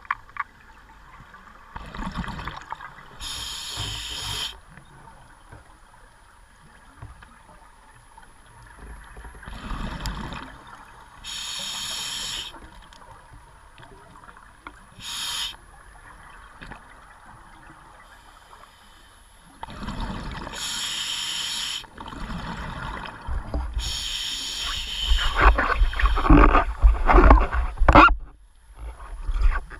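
A scuba diver breathing through a regulator underwater: a hissing burst of exhaled bubbles every few seconds. In the last few seconds comes a louder stretch of low rumbling, crackling bubble noise.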